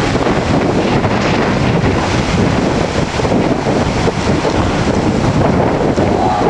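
Windstorm gusting hard straight onto the microphone, making a loud, unbroken rush of wind noise.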